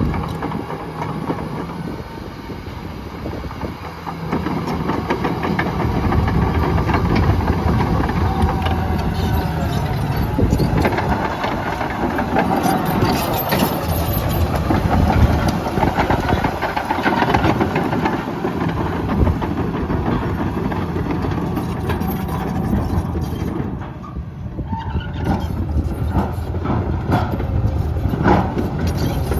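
John Deere 950J crawler bulldozer's Liebherr diesel engine running under changing load while the machine works, with the tracks clanking throughout. The load eases briefly near the end and then builds again.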